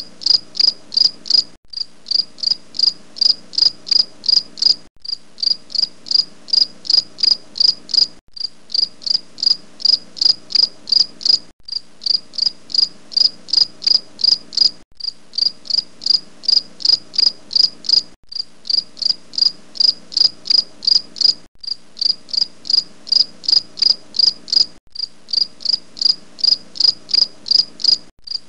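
Insect chirping: rapid, evenly spaced high-pitched chirps that break off for a moment about every three seconds.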